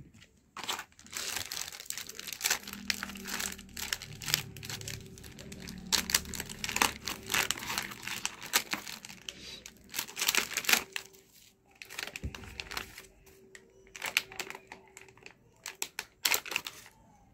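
Plastic packaging bags crinkling and rustling in irregular bursts as hands handle them and pull them open.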